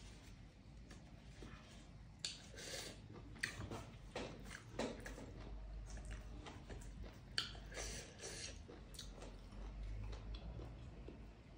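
Close-up mouth sounds of a person eating dhido and curry by hand: chewing and wet lip smacks with many short clicks, and a couple of brief hissing breaths.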